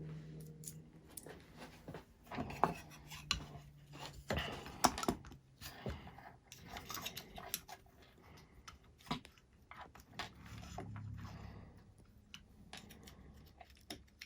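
Small screws and clamp parts being handled and worked into place on a drone frame: irregular clicks, taps and scrapes, the sharpest clicks coming between about two and five seconds in.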